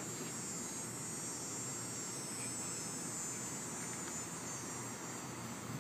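Steady high-pitched buzz of summer backyard ambience, with no clear breaks or strokes.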